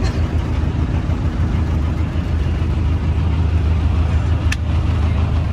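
A motor boat's engine running steadily under way, a constant low drone. A single sharp click about four and a half seconds in.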